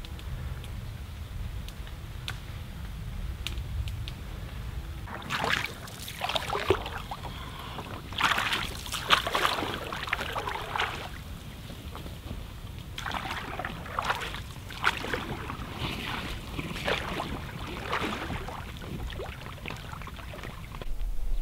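Small lake waves lapping and splashing at the shoreline in a series of short, irregular splashes about a second apart, with a steady low wind rumble on the microphone.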